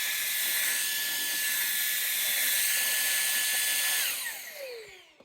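Levoit LVAC 200 cordless stick vacuum running with a steady high whine and rush of air, then switched off about four seconds in, its motor falling in pitch as it spins down to a stop.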